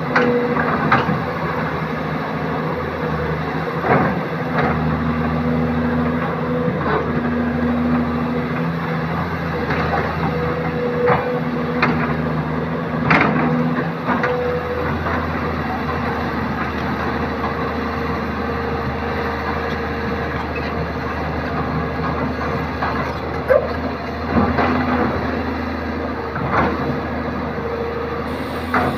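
Kobelco SK200 excavator's diesel engine running, its pitch and strength shifting with the hydraulic load as the arm digs and swings. Sharp metallic knocks of the bucket and linkage sound every second or two through the first half and again near the end.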